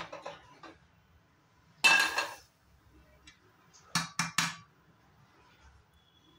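A steel ladle and metal pan clinking and clattering: a few light clinks at the start, one loud ringing clatter about two seconds in, and three quick knocks around four seconds in.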